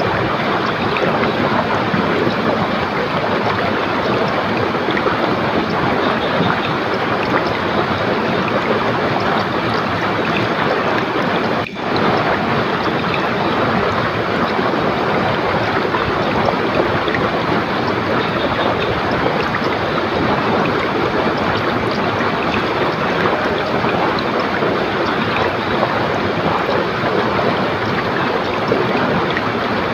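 River water rushing swiftly, a steady full rush without a break except a momentary dropout about twelve seconds in.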